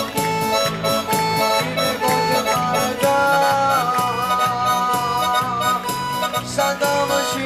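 Southern Italian tammurriata-style folk dance music: a held, reedy melody line over a steady pulsing beat, with hand castanets clicking along.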